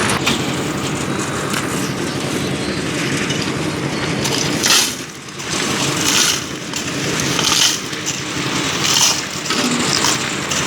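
Concrete mixer running, its drum turning with a steady rough rumble. From about halfway through, a gritty swish comes back about every second and a half.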